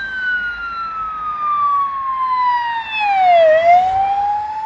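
Vehicle siren on a slow wail: its pitch slides steadily down for about three and a half seconds, then turns and starts rising again, getting louder around the turn.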